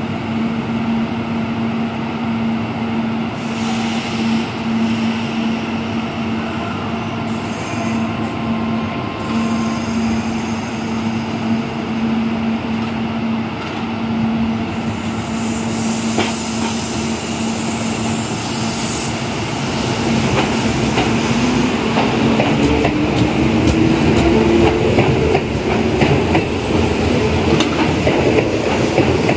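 Kintetsu Aozora II electric train standing at the platform with a steady electrical hum, then starting to pull away about twenty seconds in. The motor whine rises steadily in pitch and the wheels on the rails grow louder as it gathers speed.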